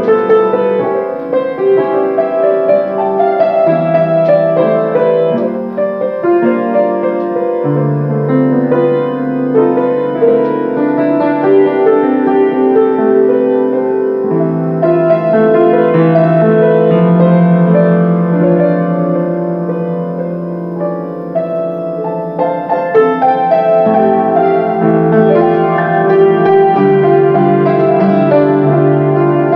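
Solo grand piano playing a melody over long-held bass notes that change every few seconds, the notes ringing on into one another.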